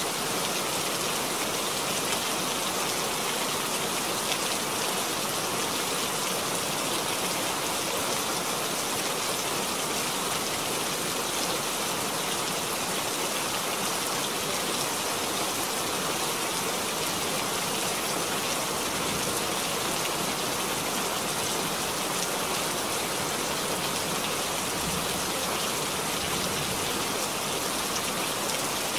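Steady rain falling on a puddle and leaves: an even hiss flecked with many small drop impacts.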